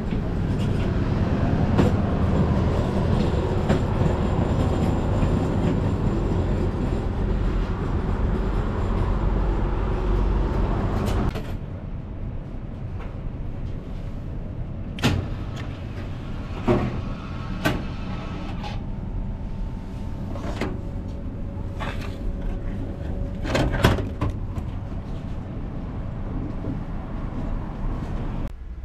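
A loud, steady rumble that cuts off suddenly about eleven seconds in. After it, a quieter stretch with a series of sharp clicks and clunks from an old vending machine as its selection buttons are pressed.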